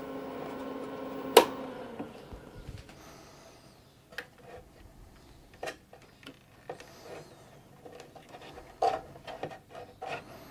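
Steady hum of the running IBM 5155 portable PC that stops with a sharp click about a second and a half in as the machine is switched off. Then scattered small clicks and rubbing as the external 5.25-inch floppy drive is handled.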